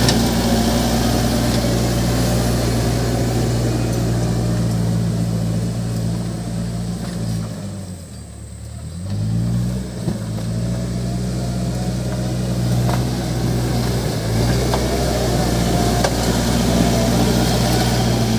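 Case 580 Super M backhoe loader's diesel engine running steadily, its revs dropping away about seven seconds in and then picking back up about two seconds later before it settles back to a steady run.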